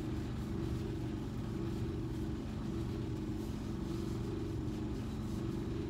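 Steady low hum of room ventilation, unchanging throughout.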